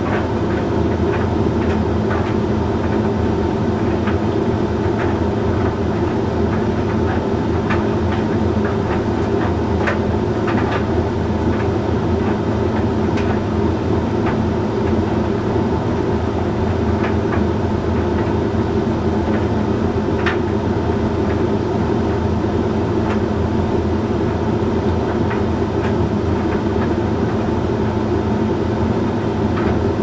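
Hoover Link X Care HLX C10DRGR condenser tumble dryer running mid-cycle on a load of shirts: a steady hum from the motor and turning drum, with scattered light clicks and taps as the shirts tumble.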